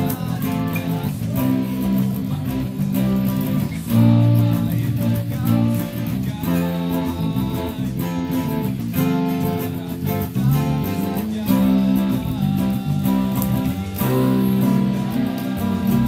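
Two acoustic guitars and an electric bass guitar playing together in an instrumental passage of a pop-rock song, with chords changing over a moving bass line.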